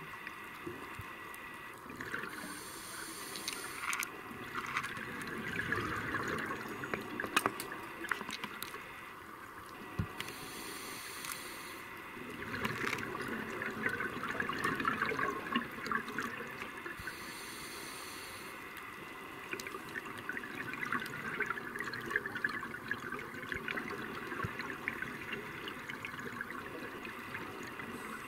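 Scuba diver's regulator breathing, heard underwater: a short hiss of each inhale, three times, each followed by several seconds of bubbling exhaled air.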